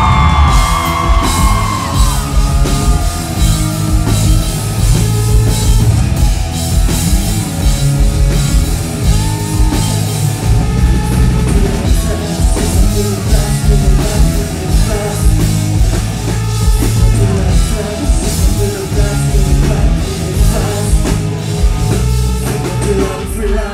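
Live rock band playing loudly, a drum kit keeping a steady beat under the full band, with singing.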